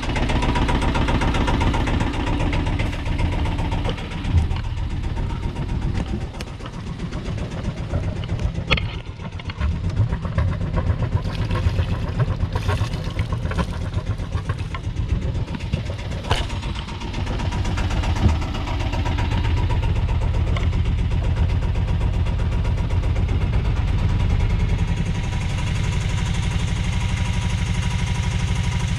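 Bukh DV10 single-cylinder marine diesel idling steadily after its yearly service, with raw cooling water splashing out of the hull outlet into the sea around the middle.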